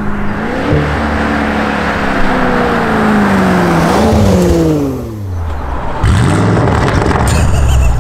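Maserati Levante Trofeo's Ferrari-built twin-turbo V8 driving past under power. Its note rises briefly under a second in, sinks slowly as the car goes by, rises again about four seconds in, then falls away and fades. About six seconds in, a louder low engine rumble starts suddenly.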